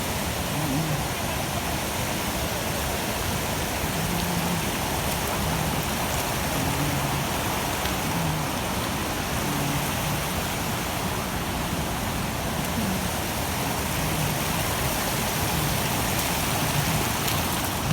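Waterfall's falling water: a steady, even rush of noise.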